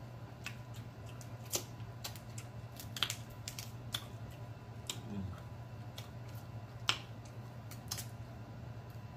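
Close-up eating sounds of crab legs: irregular sharp clicks and cracks of shell being broken and picked apart by fingers and teeth, with a wet squish between them.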